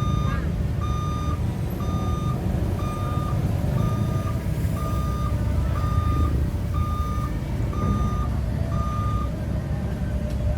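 Amphibious CAT 307 excavator's warning alarm beeping at one steady pitch, about three beeps every two seconds, over the steady low running of its diesel engine; the beeping stops near the end.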